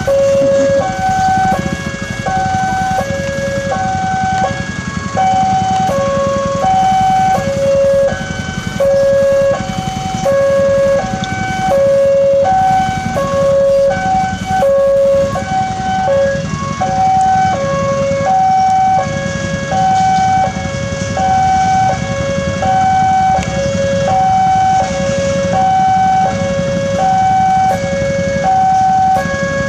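Railway level-crossing warning alarm sounding a steady alternating two-tone, low then high, each note lasting about three quarters of a second, repeating while the barriers are down. Underneath is the low rumble of idling engines from the queued traffic.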